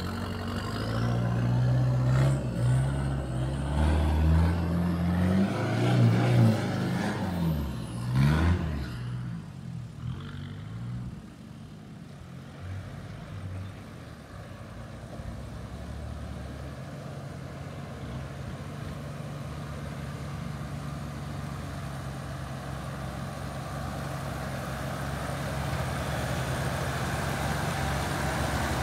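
A 4x4 ute's engine revving up and down as it climbs through a deep rut in the dirt, for about the first nine seconds. After that, a Toyota LandCruiser 80 Series engine runs steadily at low revs and grows louder as the vehicle comes up close.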